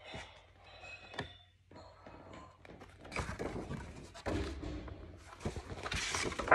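A hardcover picture book being handled and its pages turned: paper rustling and soft thunks, louder and busier after about three seconds, with the loudest knock near the end.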